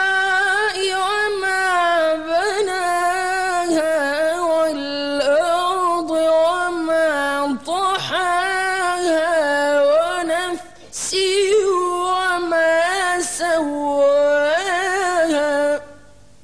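A young man's solo voice reciting the Quran in melodic tajweed style, in a high register with long held, ornamented notes. There is a short pause for breath about ten and a half seconds in, and the phrase ends just before the close.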